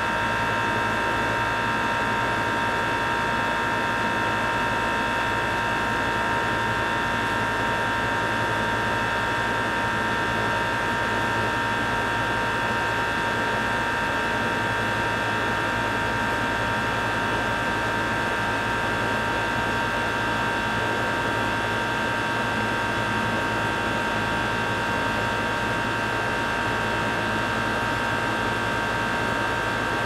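Heat pump running steadily in heating mode: a constant low hum with several unchanging high tones above it.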